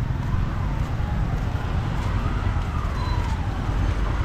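Steady low rumble of motor traffic, with a faint tone that rises and then falls once in the second half.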